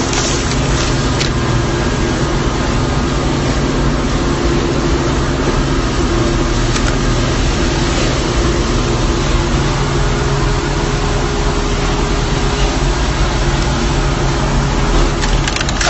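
A vehicle engine running steadily, with a low rumble, a constant hum and a few faint clicks.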